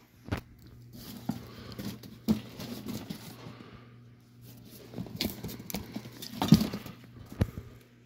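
Cardboard carton being handled and turned over: scraping and rustling of the cardboard with several sharp knocks, the loudest about six and a half seconds in, over a low steady hum.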